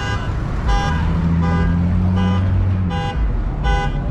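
A car horn honking over and over in a steady beat, about one and a half honks a second. Under it a car engine hums low for a second or two in the middle.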